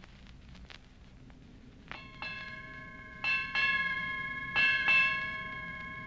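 A bell struck six times in three quick pairs, each pair starting about a second and a half after the last, with the tones ringing on between strikes: the paired pattern of a ship's bell sounding six bells.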